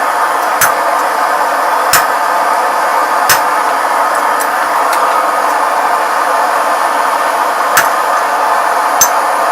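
Hammer striking steel on an anvil five times at irregular intervals, the first three about a second and a half apart, then a pause before two more. A steady rushing noise runs underneath.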